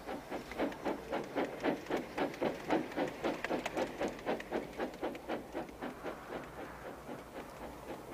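Steam engine puffing along in even chuffs, about three or four a second, growing louder and then fading away.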